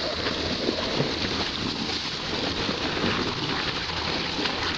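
Steady rush of water along a moving boat's bow, mixed with wind on the microphone.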